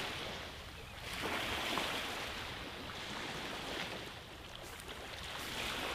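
Small waves washing onto a sandy beach, the rush swelling about a second in and easing off around four seconds, with wind rumbling on the microphone.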